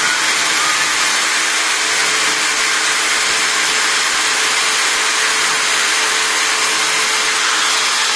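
Electric drill running steadily as a makeshift lathe, with a small file held against the metal part spinning in its chuck, scraping it to shape: the rounded end of a gunsmith-made plunger being finished.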